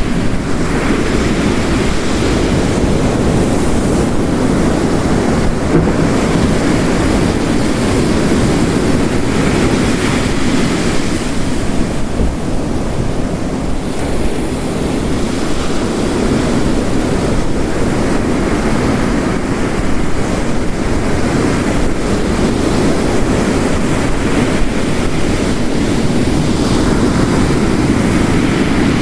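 Ocean waves crashing on the shore mixed with heavy rain, a dense, steady roar that slowly swells and eases as the waves break.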